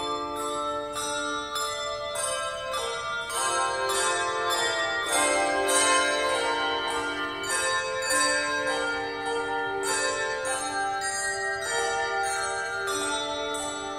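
Handbell choir playing a slow carol: chords of struck handbells ringing on and overlapping, with fresh strikes at a steady beat and the chord changing every second or so.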